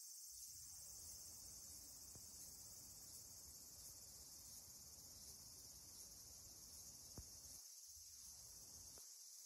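Faint, steady high-pitched chorus of insects chirring, with a low rumble beneath and one small click about seven seconds in.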